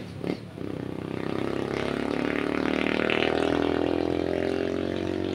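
Skygo motorcycle engine running under way, easing off for a moment at the start and then pulling up through the revs, growing louder over the next two seconds. It picks up cleanly without bogging, the misfire at full throttle cured by the battery-operated wiring conversion.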